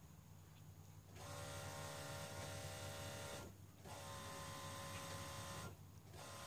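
A steady, high-pitched electric motor whine starts about a second in, cuts out briefly twice, and starts again each time.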